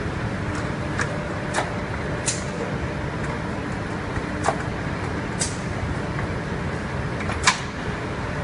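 Factory roller-conveyor line carrying ceramic toilets, running with a steady mechanical hum and scattered sharp clacks, the loudest near the end.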